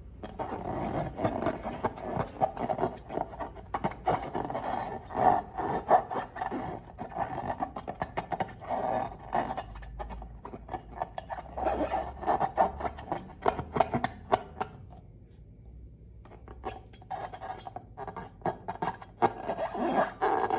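Slime being worked by hand, squished and stretched, with irregular sticky crackles and squelching clicks. The sound pauses for about a second and a half near the two-thirds mark, then resumes.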